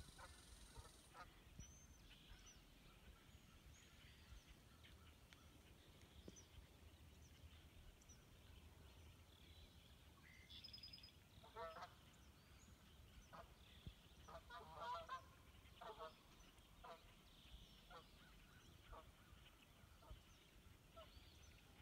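Faint goose honks in scattered short calls, starting about halfway through and bunching together a few seconds later, over faint high chirps.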